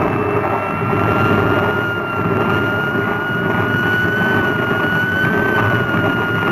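Science-fiction ray-machine sound effect of the Atom Harmonizer at work: a steady electronic whine that slowly rises in pitch, over a loud rushing rumble.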